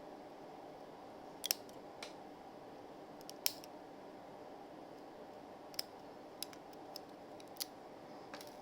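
A series of about nine sharp, irregular clicks or snips over a steady hum, the loudest near the middle.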